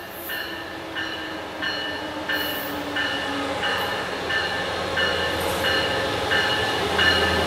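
Amtrak Pacific Surfliner train pulling into a station, its bell ringing steadily about one and a half strikes a second. Under the bell, the rumble of the locomotive and wheels grows louder as the train nears.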